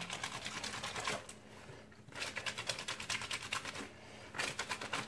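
Soapy wet cotton T-shirt scrubbed by hand, fabric rubbed against itself in quick rhythmic strokes, in three bouts with short pauses between.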